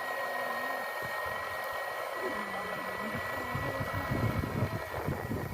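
Steady whirring of a small electric motor, with a thin high whine held at one pitch. Low rumbling sets in about three and a half seconds in.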